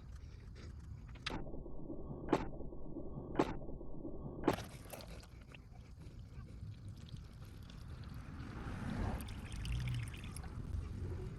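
Motor oil draining and splashing into a drain pan, with three sharp clicks about a second apart early on.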